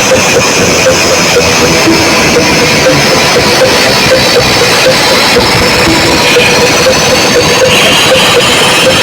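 Music blasting from a large DJ sound system during a sound check, with a steady beat a little over two a second. The recording is overloaded and harsh, the music smeared into noise.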